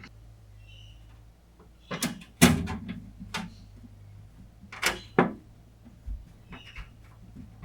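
Computer parts being handled and fitted during PC assembly: a run of sharp clicks and knocks of hard plastic and metal. The loudest knock comes about two and a half seconds in, and lighter taps follow.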